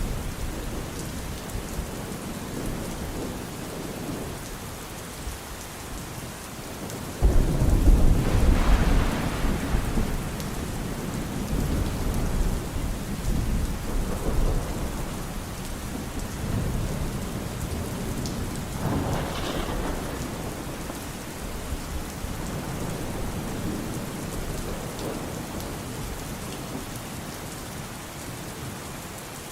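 Steady rain with thunder: a sudden loud clap about seven seconds in that rolls on for a few seconds, and a weaker rumble later.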